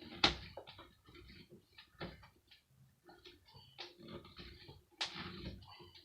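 Hand tool forcing a tight part of a hand air dryer's casing: a sharp knock about a quarter second in and another about five seconds in, with small clicks and scrapes between.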